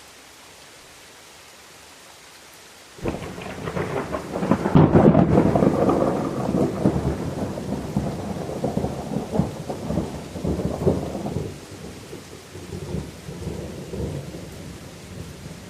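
Steady rain falling, then about three seconds in a thunderclap breaks in and rolls on as a long rumble that slowly fades.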